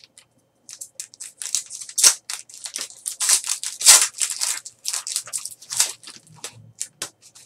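The wrapper of a 2013-14 Panini Preferred Basketball card pack crinkling and tearing as it is torn open by hand and the cards are pulled out: a string of short, irregular crackles.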